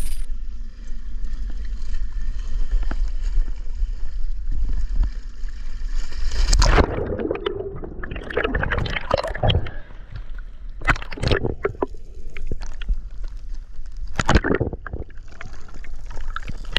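A steady low rumble, then about six and a half seconds in a splash as a diver enters the sea. After it comes underwater bubbling and gurgling in irregular bursts, from air streaming past the camera after the entry.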